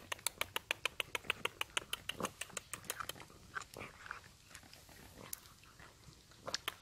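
Several cats crunching dry kibble: a quick run of crisp crunches, about six or seven a second. The crunching thins out midway and picks up again near the end.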